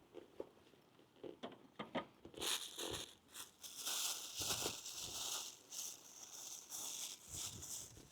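Crinkly packaging being handled, crinkling and tearing in uneven bursts, after a few light clicks and knocks in the first two seconds.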